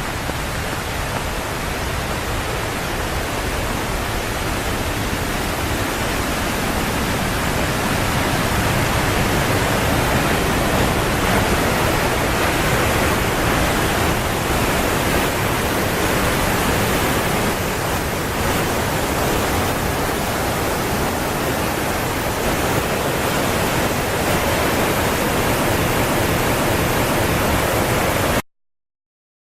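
Waterfall: a loud, steady rush of falling water, growing a little louder after several seconds, then cutting off suddenly near the end.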